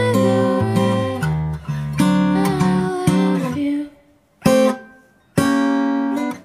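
Acoustic guitar strumming chords. The strumming runs on for about three and a half seconds, then stops, and two single strummed chords ring out alone, about a second apart, with near silence between them.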